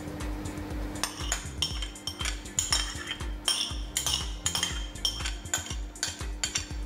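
Light clinks and scrapes of a utensil against a ceramic bowl as mashed banana is tipped into a food-processor bowl, over background music with a steady beat.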